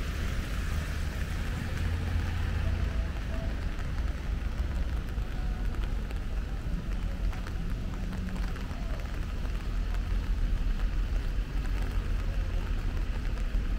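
Street ambience in light rain: a steady hiss of rain and wet pavement over a low rumble of traffic.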